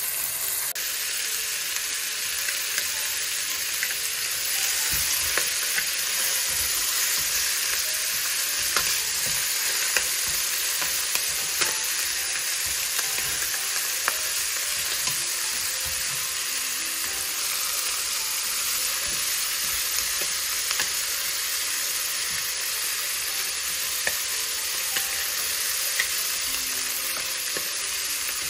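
Chicken pieces sizzling steadily in a stainless steel pot as they brown, with frequent light clicks of chopsticks turning them against the pot.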